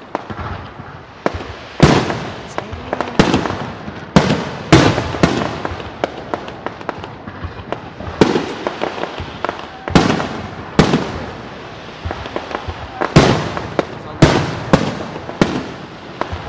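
Aerial fireworks shells bursting one after another: about a dozen sharp bangs at uneven intervals, each trailing off, with smaller pops and crackles in between.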